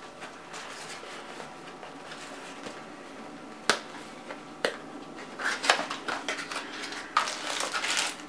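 Styrofoam packing block and a plastic bag being handled: a sharp click a little under four seconds in and another shortly after, then a run of plastic rustling and crinkling in the last three seconds as the bagged part is pulled out.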